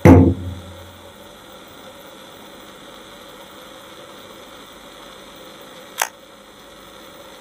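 A heavy thump on the wooden stage with a short low ring, then a steady low hum with one sharp click about six seconds in.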